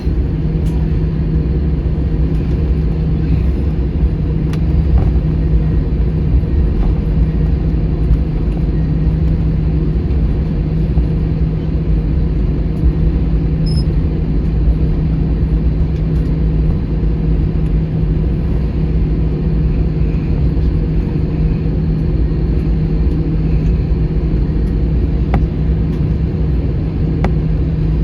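Steady low rumble with a constant droning hum inside the cabin of an Airbus A321 on the ground, from its engines and air systems, with a few faint clicks.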